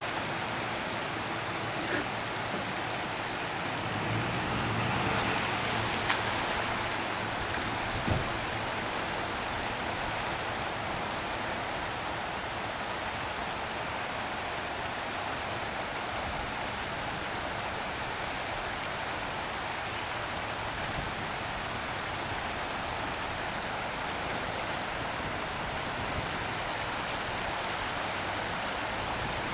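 Floodwater rushing across a road, a steady, even hiss, with a few brief knocks in the first several seconds.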